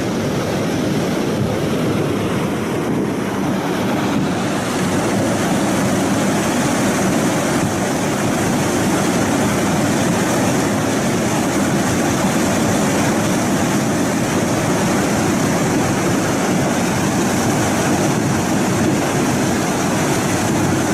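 A fast-flowing muddy torrent rushing past with a loud, steady noise.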